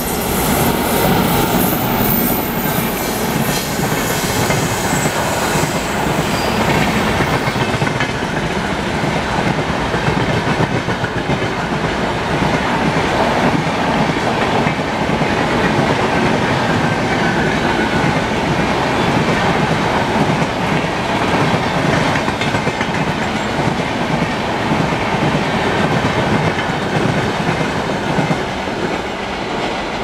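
Express passenger train hauled by a WAP-7 electric locomotive passing close at speed: a loud, steady rush of coach wheels on the rails with clickety-clack over the rail joints.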